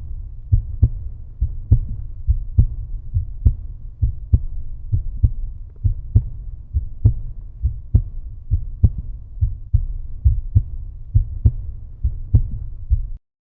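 Outro music made almost entirely of deep bass: a strong thump a little under once a second with lighter beats between, cutting off abruptly near the end.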